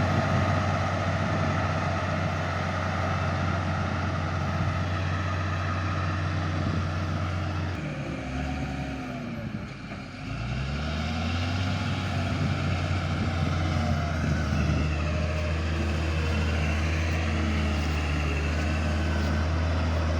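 Cat D6G bulldozer's diesel engine running steadily under work. About eight seconds in its note drops and falters, then recovers about eleven seconds in and runs steadily again.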